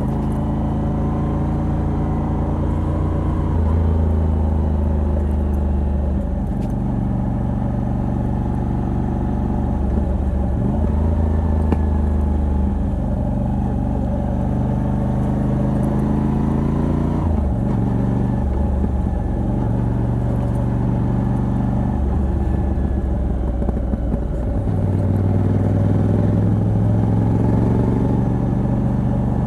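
Moto Guzzi V85TT's air-cooled transverse V-twin running under way through its stock exhaust with a Mistral decat. Its note rises and falls several times with throttle and gear changes, with a short dip in the middle.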